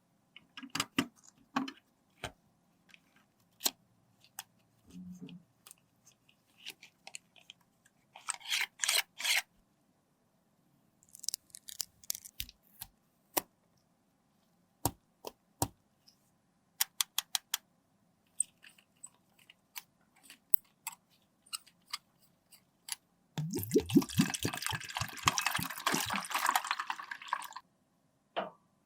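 Close-up handling of makeup and its containers: scattered small clicks and taps, short scraping bursts about eight and eleven seconds in, and a longer spell of rapid scraping near the end.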